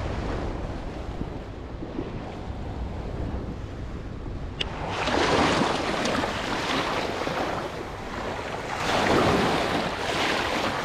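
Small waves washing up over sand and shallow water at the shoreline, swelling twice in the second half, over a steady low rumble of wind on the microphone. A single sharp click about halfway through.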